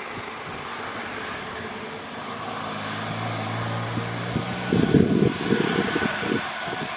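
Airbus A320neo's turbofan engines running at taxi power as the airliner rolls and turns, a steady jet hiss that grows a little louder. A low hum joins partway through, and about five seconds in there are irregular low gusty rumbles, the loudest part.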